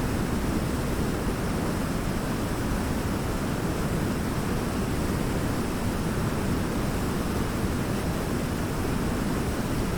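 Waterfall: steady rush of falling water, even and unbroken, with most of its weight in a deep rumble.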